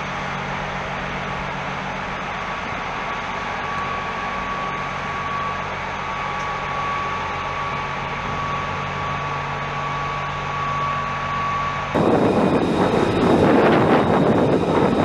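A steady low mechanical hum with a thin high tone, then about twelve seconds in a sudden change to a much louder steady roar: an F-35B Lightning II's jet engine running on a ship's flight deck.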